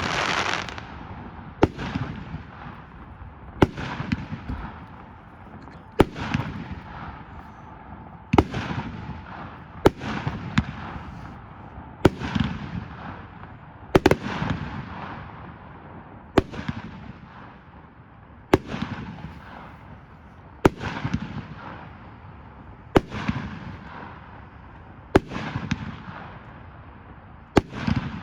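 Consumer fireworks cake ('Guard Dog') firing at a steady pace: a sharp bang about every two seconds, each followed by a fading hiss.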